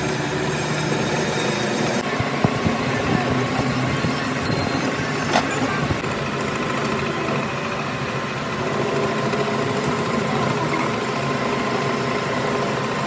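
Metal lathe running while its cutting tool turns down a steel shaft: a steady mechanical running noise, with a few knocks about two and a half seconds in and a sharp click a little past five seconds.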